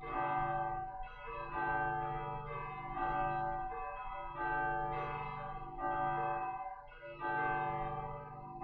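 Church bells ringing in a slow, steady series, a new stroke a little more than once a second, each one ringing on and fading into the next.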